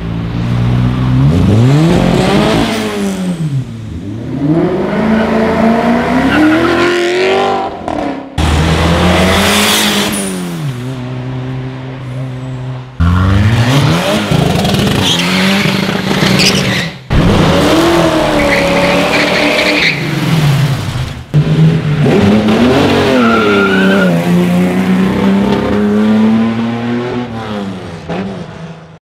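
Several car engines revving and accelerating hard in turn, in short clips cut together: engine notes climb and fall through the gears, and each clip cuts off abruptly.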